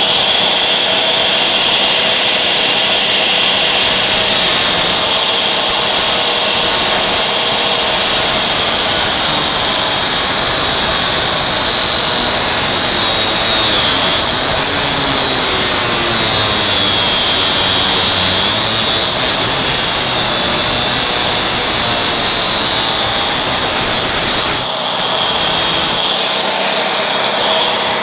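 Electric angle grinder grinding a steel bar, a loud steady high whine whose pitch wavers and sags as the disc is pressed into the metal, easing off briefly near the end.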